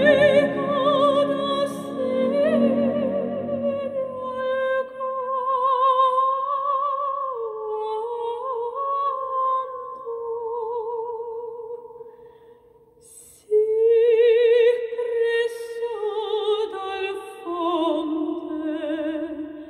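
Music played through a pair of 3D-printed back-loaded horn speakers with 4-inch dual voice coil drivers: a slow, opera-like melody with a wide vibrato, over a low accompaniment that thins out after the first few seconds. The music fades almost away about twelve seconds in, then a louder phrase comes in.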